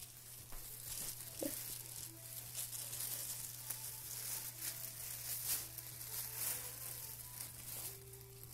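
Thin plastic grocery bag crinkling and rustling irregularly as a cat shifts inside it and the bag is lifted by its handles, over a steady low hum.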